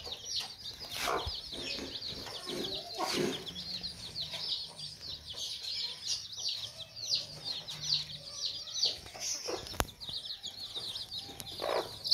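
A brood of baby chicks peeping without pause in high, short, falling cheeps, with their mother hen clucking low a few times among them.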